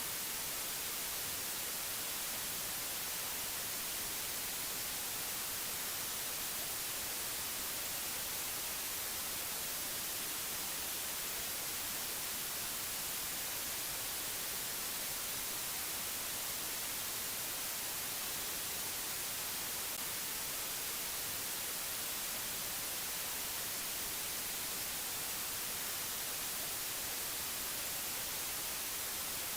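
Steady static hiss like white noise, strongest in the treble and unchanging throughout.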